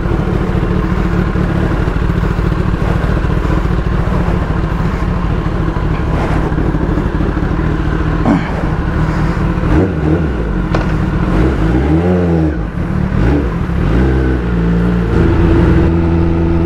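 Sport motorcycle engine running at low speed, then revving up and down several times as it pulls away, settling into a steady higher note as the bike rides along the road.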